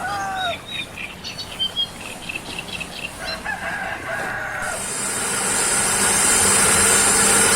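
A rooster crows twice, with small bird chirps around it. About two-thirds of the way through, the motor of a homemade foam-grating machine starts and runs steadily with a loud high hiss.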